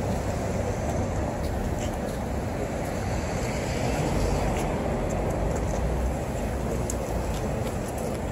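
Steady outdoor city noise: a low rumble of traffic with wind buffeting the microphone, and a few faint clicks.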